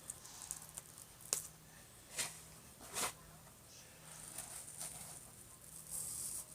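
Clear glue slime being worked by hand with sand mixed in: a few sharp sticky snaps and squishes, then a gritty rustling from about four seconds in.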